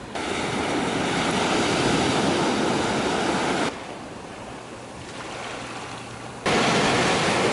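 Ocean surf washing up on a sandy beach: a steady rush of breaking waves and foam. About halfway through it suddenly drops to a quieter wash, then comes back just as suddenly near the end.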